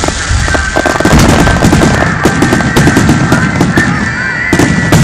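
Fireworks going off overhead: rapid crackling and popping from glittering crackle stars over low booms, loud throughout.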